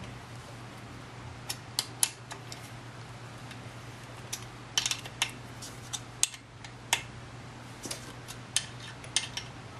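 A wrench clicks and clinks sharply against the handlebar stem's side clamp bolts at irregular intervals as they are tightened. A steady low hum runs underneath.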